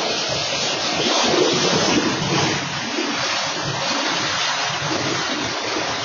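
Norfolk Southern freight train passing close by: diesel locomotives going past, then hopper cars rolling over the rails, a steady rushing rumble with no horn.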